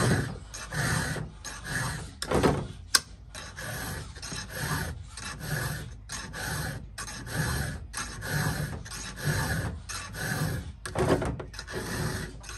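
Round chainsaw file rasping across the cutter teeth of a saw chain in a steady run of freehand strokes, about two a second.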